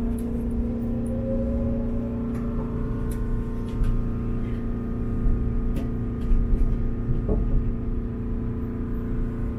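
Chiba Urban Monorail suspended train running, heard from inside the front car: a steady electric motor whine over a low rumble, with one tone rising in pitch during the first couple of seconds as the train picks up speed. A few light clicks and knocks come through, one a little after the middle.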